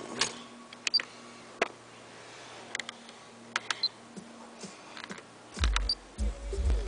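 Several sharp clicks and taps over a faint electrical hum, then, about five and a half seconds in, heavy pulsing bass from a car audio system's subwoofer box comes in.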